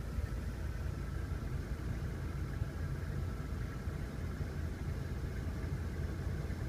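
Full-size van's engine idling steadily, heard from inside the cab as a low, even rumble.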